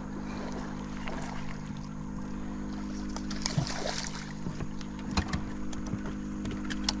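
Steady low hum from the boat's motor, with water splashing beside the boat about three to four seconds in and a few sharp clicks near the end.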